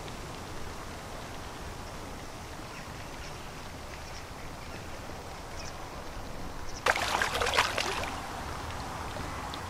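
A hooked common carp thrashing at the water's surface near the end, a loud, choppy spell of splashing lasting about a second as it is brought in to the net. Before that only a low, steady outdoor background.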